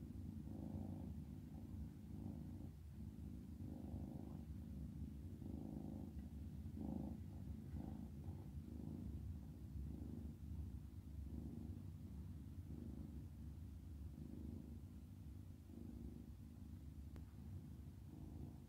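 A domestic cat purring steadily and softly, swelling and fading about every second or two, as it dozes off.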